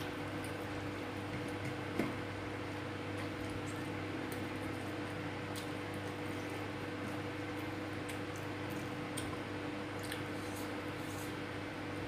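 Faint chewing and wet mouth clicks of a man eating rice and sambal by hand, with a sharper click about two seconds in, over a steady low hum.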